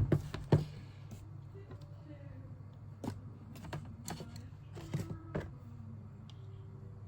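Sharp clicks and knocks of small hard plastic parts being handled during disassembly of a Panasonic ER1610 hair clipper: two loud ones in the first second, then scattered taps around three to four seconds in and a pair near five seconds, over a steady low hum.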